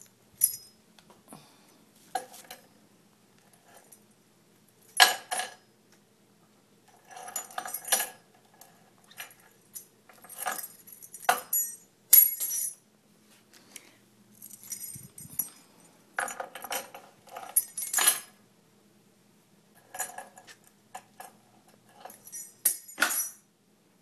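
Small metal objects jingling and clinking in about a dozen short, irregular shakes, with quiet gaps between them.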